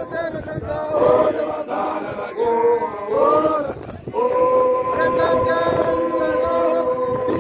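A group of Basotho male initiates (makoloane) chanting a song together in unison. About four seconds in they settle on one long held note.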